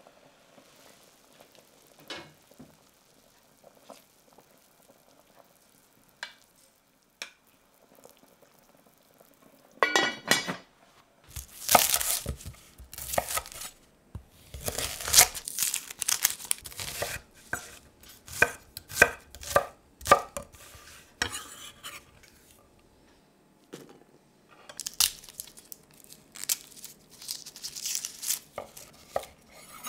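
Shallots being trimmed and peeled with a chef's knife on a wooden cutting board: the dry papery skins crackle and the blade taps the wood in quick clusters, after a quiet first third. Near the end, garlic cloves are peeled by hand, their skins crackling.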